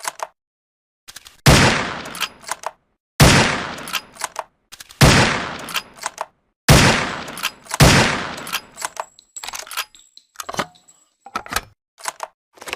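SRP rifle sound effect: five shots, each with a ringing tail, about one and a half to two seconds apart, with sharp mechanical clicks of the action between them. A run of clicks with no shots follows in the last few seconds.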